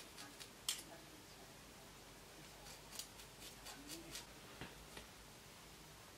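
Faint snips of scissors cutting into the ends of human-hair braids: a loose, irregular run of short clicks, the sharpest about a second in and a cluster a little after halfway. The cuts thin out the braid ends so they are gradual rather than choppy.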